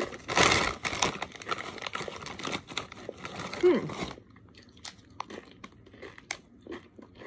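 Crunchy Doritos tortilla chips being bitten and chewed, with loud crunching for about four seconds, the loudest near the start. After that it settles into quieter, scattered chewing clicks.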